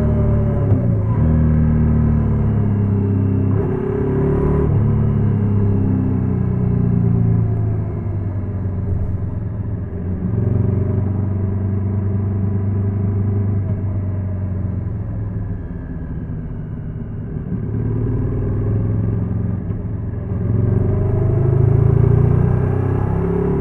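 Honda NC750X's parallel-twin engine running, its pitch rising and falling several times, dropping to a lower, quieter stretch past the middle and climbing again near the end.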